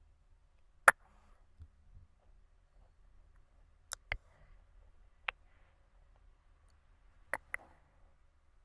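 Close-miked ASMR mouth clicks: about six sharp, separate clicks, two of them coming in quick pairs, over faint breathing.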